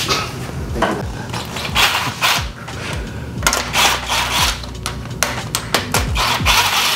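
Cordless impact driver running in several short bursts as it spins bolts out of the front of a 2JZ engine, with clicks of metal parts between the bursts.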